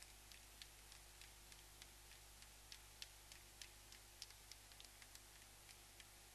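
Near silence: a steady faint hiss with faint, sharp clicks about three times a second.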